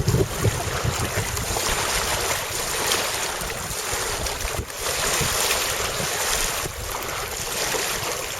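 Strong wind blowing, a steady rushing noise with low buffeting from wind on the microphone, heaviest in the first second or so.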